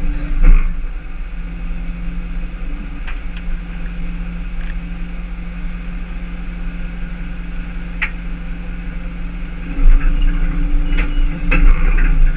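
Tow truck engine idling with a steady low hum, a few light clicks over it, and a louder rumble in the last couple of seconds.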